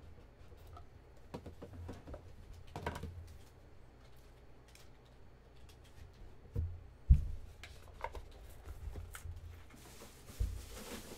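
Trading cards and their packaging handled on a tabletop: scattered light clicks and rustles, two dull thumps about six and a half and seven seconds in (the loudest sounds), and a brief swish near the end.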